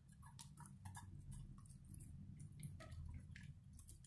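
Dog eating wet food from a plastic bowl: faint, irregular chewing and licking clicks over a low steady hum.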